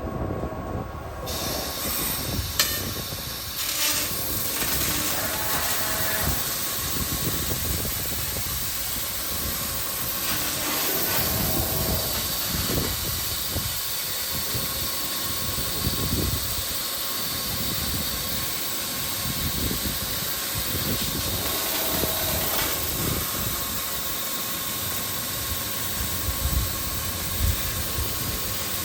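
CNC tube laser cutting machine bevel-cutting a 6 mm carbon steel square tube: a steady hiss with machine noise and a faint steady whine, with small irregular knocks.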